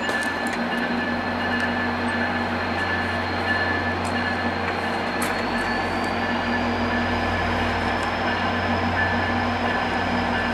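Two EMD F40PH diesel locomotives running steadily as they haul a long passenger train slowly out, with a thin high squeal that dips and rises in pitch and a few sharp clicks.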